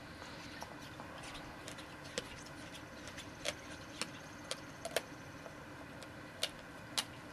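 German Shepherd gnawing on a Chewber chew toy: irregular sharp clicks and snaps of teeth on the toy, about nine in all, the loudest near five and seven seconds in.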